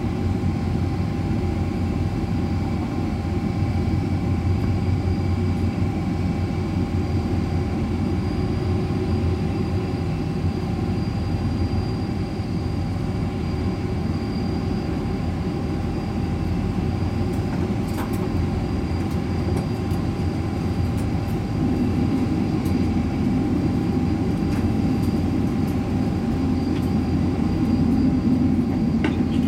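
Steady low rumble and hum of running machinery, likely ventilation plant, with a few faint steady whining tones above it and some faint ticks in the second half.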